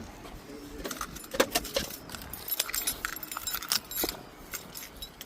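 A bunch of keys jangling as they are picked up and handled, an irregular run of small metallic clicks and jingles.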